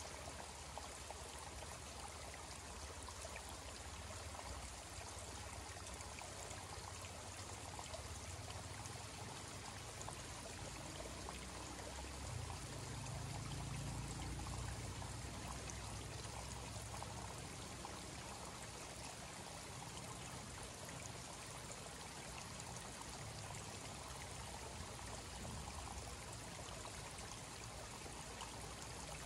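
Small forest creek trickling steadily over logs and debris, a faint, even flow of water. About twelve seconds in, a low rumble swells for a few seconds and then eases back.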